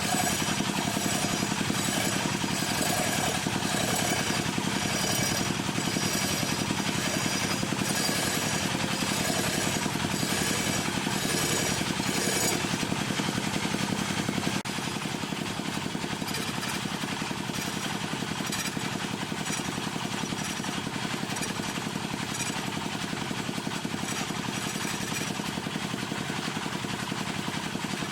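Wood lathe running steadily with a rapid rattle as a turning tool cuts the spinning wood. It gets a little quieter about halfway through.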